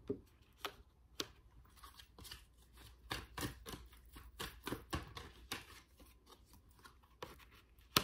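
Tarot cards being handled and laid down on the table: a run of light taps and snaps of card on card, a few near the start and a quicker cluster in the middle.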